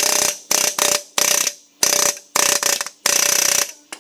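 Compressed-air tool rattling in about eight short bursts, the last and longest near the end, driving at a seized piston and connecting rod in a locked engine that is starting to move.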